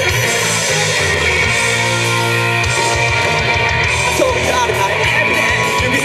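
Loud rock music played live: electric guitar over a band backing, steady throughout, with a woman's singing voice coming in near the end.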